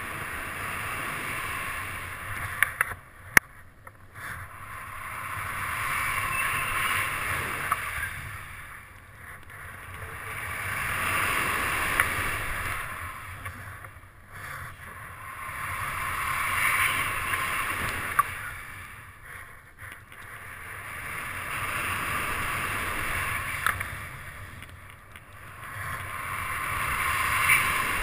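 Wind rushing over the camera microphone of a paraglider flying fast and low, the rush swelling and fading about every five seconds. A few sharp clicks stand out, the loudest about three seconds in.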